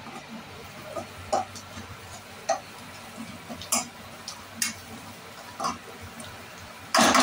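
A metal spatula stirring chopped onions and coriander in a kadhai of frying oil, clinking and scraping against the pan about once a second over a steady sizzle, with a louder burst of noise right at the end.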